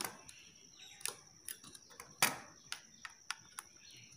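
A scattering of light, irregular clicks and taps from a plastic bulb holder and a screwdriver being handled as wires are fixed to the holder's terminals, the loudest click about two seconds in.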